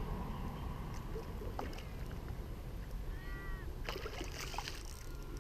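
A hooked carp thrashing and splashing in shallow water at the bank edge, in a dense burst about four seconds in, over a steady low rumble.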